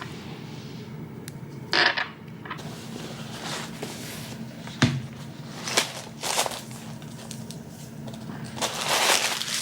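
Scattered clicks and short rustling bursts, like objects being handled, over a faint steady low hum.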